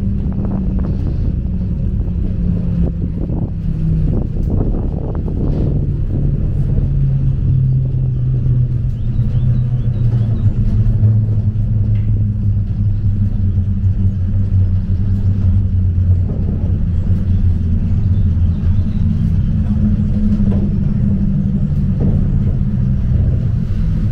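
Cable car running down its rope, heard from inside the cabin: a steady low rumble with a hum whose pitch slides down through the first half and climbs back up a few seconds from the end.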